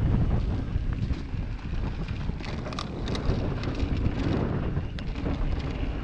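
Wind buffeting the microphone of a mountain bike's mounted camera while riding downhill, over the rolling of tyres on a dirt trail strewn with dry leaves. A few short rattles from the bike over bumps come near the middle and again near the end.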